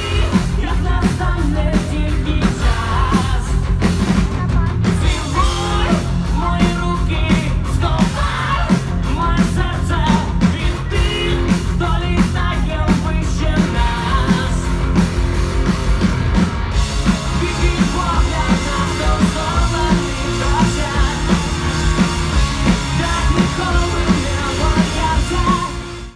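Rock band playing live: electric guitar, drums and keyboard under a male lead vocal singing.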